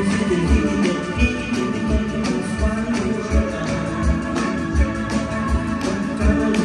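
Live band playing: a drum kit with a steady kick-drum beat, electric bass, electric guitar and keyboards, amplified through the club's PA.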